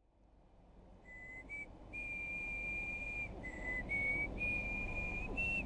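Someone whistling a slow tune: a string of clear held notes that step up and down in pitch, starting about a second in. Faint outdoor background noise fades in from silence at the start.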